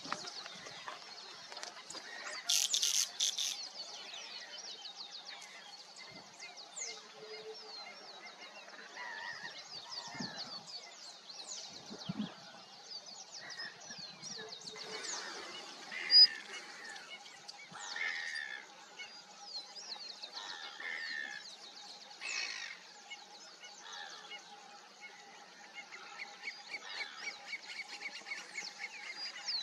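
A large flock of waterbirds, white-winged coots among them, calling: many short overlapping honks and chirps with no pause. A louder burst of calls comes about three seconds in, and a single sharp call stands out about sixteen seconds in.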